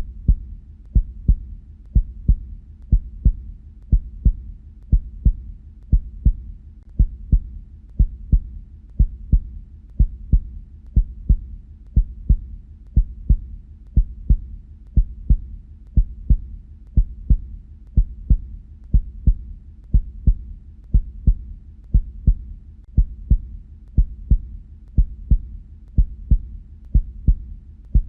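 Human heartbeat, the paired 'lub-dub' thuds of the heart valves closing, repeating steadily at about one beat a second.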